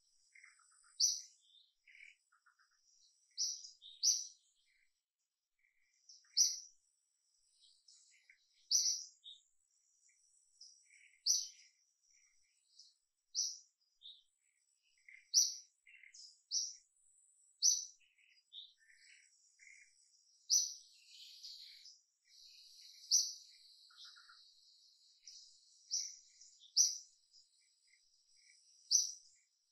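Birds chirping: short, sharp, high chirps repeating every second or two, over a thin steady high buzz of insects that grows stronger in the second half.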